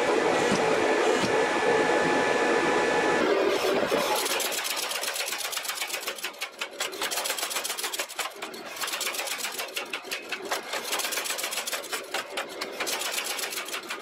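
Gas forge burner running steadily for the first few seconds; then a power hammer strikes a hot steel billet in a fast, even run of blows, drawing it out.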